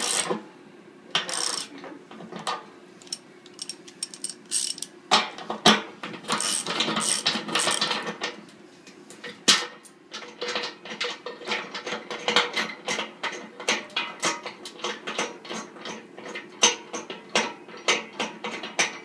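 Socket ratchet wrench clicking as it cranks the bolt of a dimpling tool that draws a pipe coupling into a steel keg wall. The clicks come in short runs at first, then in a steady quick series through the second half.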